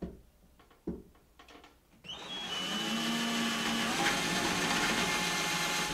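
Handheld power drill boring screw holes into a wall: a couple of clicks at first, then about two seconds in the motor starts and runs steadily for about four seconds before stopping near the end.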